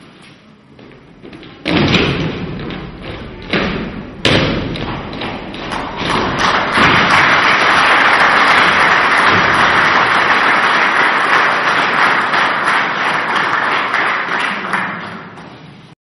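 Folk dancers' feet stamping and thudding on a wooden stage: a few heavy stamps in the first four seconds, the sharpest about four seconds in, then a dense, continuous clatter of many feet that fades away near the end.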